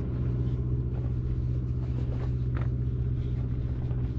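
Diesel engine idling, a low, steady rumble that does not change, with a few faint light clinks about halfway through.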